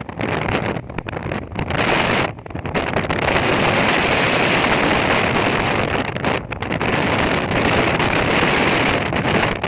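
Big sea waves rushing and breaking under strong wind buffeting the microphone, a loud steady roar that drops out briefly a few times.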